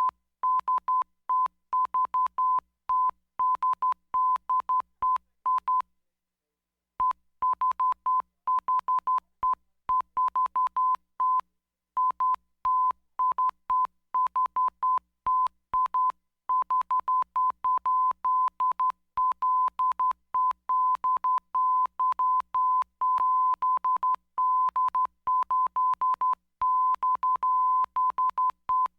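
Random Morse code transmission: a single steady beep tone keyed on and off in quick short dots and longer dashes, with one pause of about a second some six seconds in.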